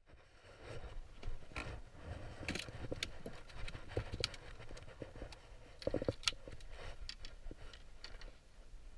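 Scattered light knocks, clicks and scrapes of gear being handled on a small boat's deck, with a white cooler being opened beside it; a louder cluster of knocks comes about six seconds in.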